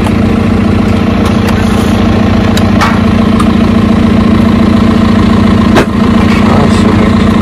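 John Deere loader tractor's diesel engine idling steadily close by, with a few sharp knocks as stones are set onto the rock pile in its front bucket.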